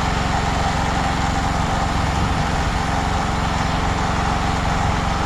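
Small portable generator engine running steadily under load as it powers a welder.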